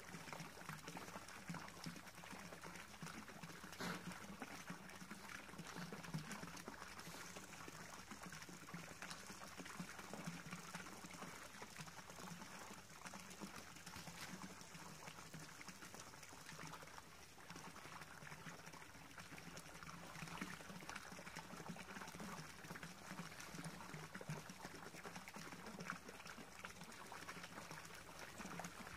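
Faint, steady splashing and trickling of a small garden-pond water spout pouring into the pond, with a few light knocks.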